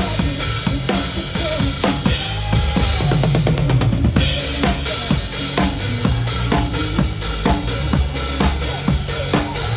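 Music with a steady drum-kit beat, bass drum and snare hitting evenly throughout.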